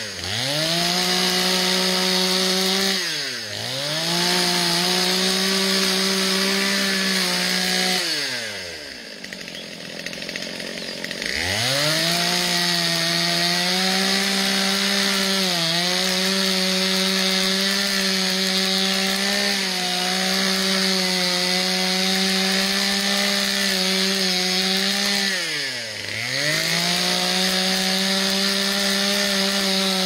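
Two-stroke Stihl chainsaw running at full throttle, cutting into a broken tree limb. The engine drops briefly about three seconds in, falls back to idle for a few seconds around the eight-second mark before revving up again, and drops once more about four seconds before the end.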